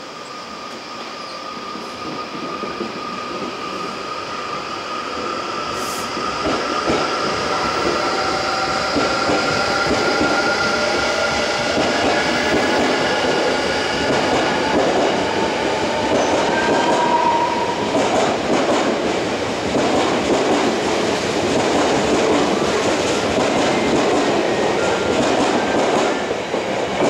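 Odakyu 60000 series MSE Romancecar electric train pulling away from a standstill. Its traction motors whine in several steady tones that slowly rise in pitch and grow louder as it accelerates. In the second half, wheels clatter rhythmically over the rails as the cars pass, easing slightly near the end as the last car goes by.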